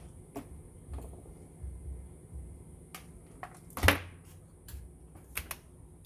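Scattered light clicks and knocks of tools and parts being handled on a workbench, with one sharp knock about four seconds in as something is set down.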